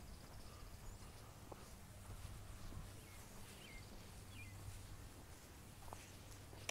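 Quiet outdoor ambience with a steady low hum and a few faint, short bird chirps about halfway through.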